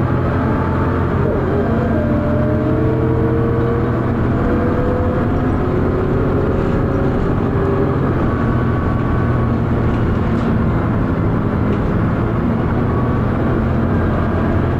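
Dennis Arrow bus engine heard from inside the bus while it is moving: loud, steady engine thrash with whining tones that rise in pitch over the first few seconds as it accelerates, then level off.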